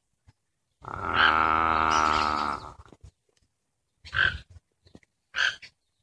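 Fasciated tiger heron calling: one long, low, drawn-out call of about two seconds, then two short, higher calls near the end.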